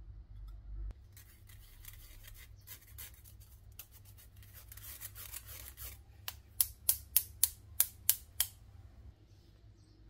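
Crisp rustling and scraping handling sounds for several seconds, then eight sharp snips or clicks in an even row, about three a second.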